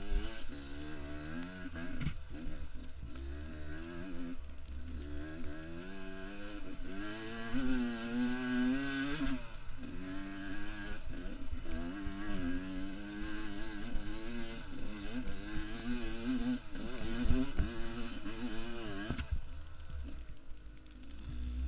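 Husqvarna 144 two-stroke dirt bike engine under way on a rough trail, its pitch rising and falling constantly with the throttle. It eases off near the end, and there is one sharp thump about seventeen seconds in.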